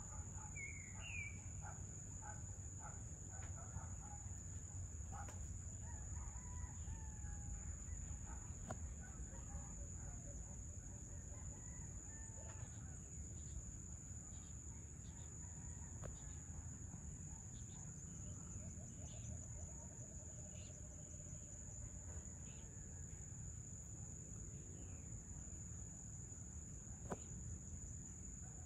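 Evening ambience: a steady high-pitched insect drone with roosters crowing and scattered bird chirps over a low rumble.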